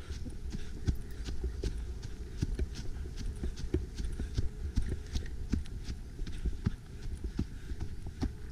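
Footsteps crunching through dry fallen leaves and twigs on a forest floor at a walking pace, sharp crackles several times a second, over a low rumble on the microphone.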